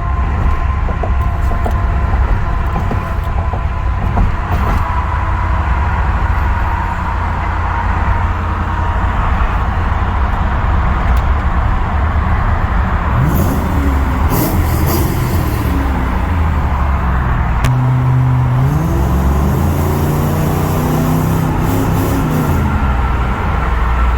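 Car driving, with a steady heavy rumble of road and engine noise. The engine pitch rises and falls twice, about halfway through and again near the end.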